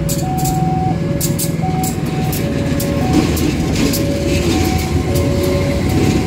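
CC201 diesel-electric locomotive running light past at walking pace, its engine rumbling low and its wheels clicking over the rails. A level crossing alarm repeats a two-note electronic ding-dong throughout.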